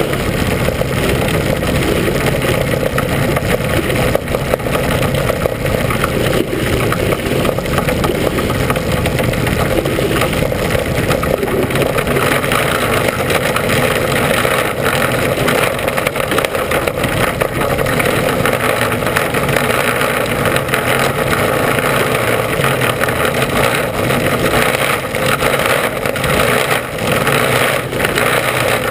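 Mini Sprint race car's engine running hard at racing speed, heard loud and steady from inside the car, along with the rush of road and wind noise.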